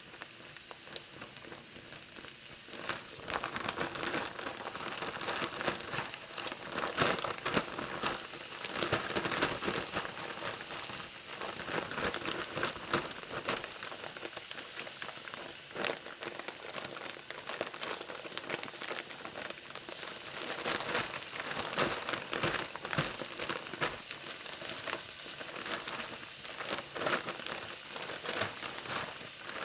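Plastic bag of stew meat and flour being shaken to coat the meat, a continuous crinkling and rustling that picks up about three seconds in.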